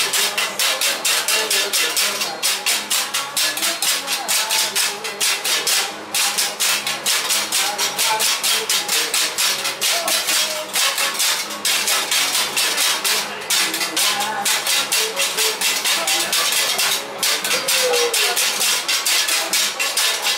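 A group of performers striking handheld percussion in a fast, steady rhythm, with voices chanting faintly over it.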